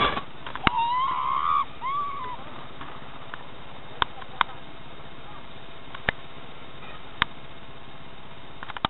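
Steady low hiss with a brief distant call, a voice rising then held and falling, about a second in, and a few sharp isolated clicks spread through.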